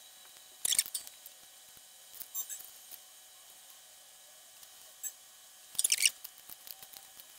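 Small clicks and scrapes of small through-hole electronic components and a circuit board being handled, in short clusters: a sharp one about a second in, a fainter one near two and a half seconds, and another sharp one just before six seconds.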